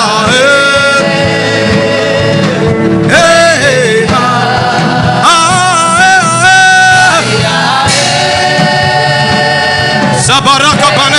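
Gospel worship music: voices singing long, wavering held notes over steady sustained chords.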